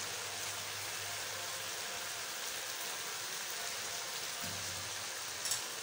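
Chicken and masala gravy sizzling in a wok with freshly added raw cauliflower florets, a steady even hiss.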